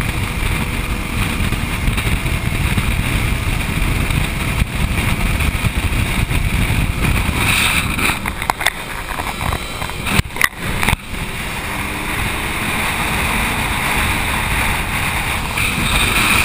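Wind rushing over a camera on a motorcycle at highway speed, with the motorcycle's engine and road noise under it. A few sharp knocks and brief dropouts come about ten to eleven seconds in, while the camera is jostled and tips towards the sky.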